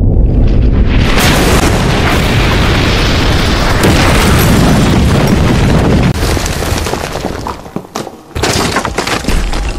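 Cartoon sound effect of a huge explosion-like boom with a long rumble. It begins about a second in, fades after about five seconds, and is followed by a few sharp crashes near the end.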